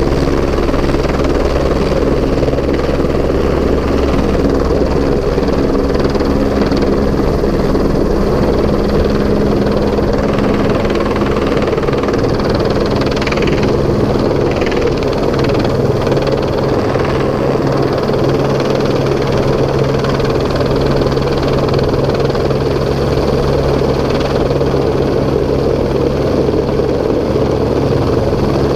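AS350 single-turbine helicopter hovering close overhead with a load on its long sling line: steady rotor beat over the turbine's running.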